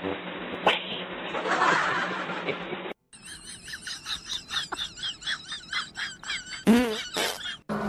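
Rapid high-pitched animal squeals, several a second, with one louder wavering cry near the end. Before them, for about three seconds, there is only a muffled hiss.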